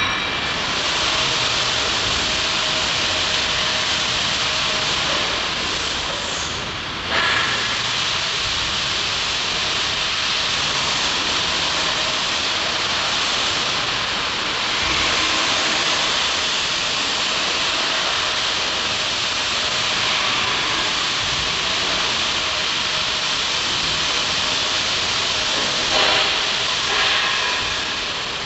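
A steady, loud hiss of shop background noise, with a brief knock or clank about seven seconds in and two more near the end.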